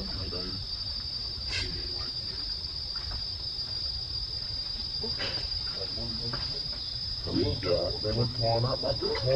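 Steady high-pitched insect drone, with short voice-like calls near the end.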